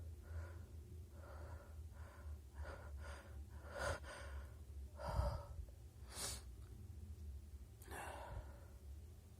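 A person's uneven breaths, gasps and sniffs as they try to bring on a sneeze, with no sneeze coming out. The loudest gasp, with a low thump, comes about five seconds in, followed a second later by a sharp sniff.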